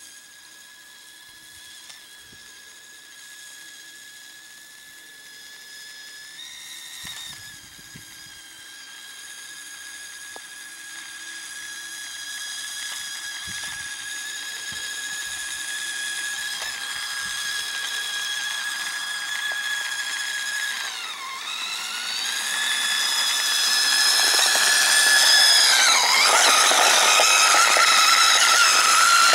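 Radio-controlled snowmobile built from Traxxas car parts, its motor and drivetrain running with a high, steady whine. The pitch dips briefly and recovers about three-quarters of the way through as the throttle eases and opens again, and the whine grows louder and rougher as the machine comes close.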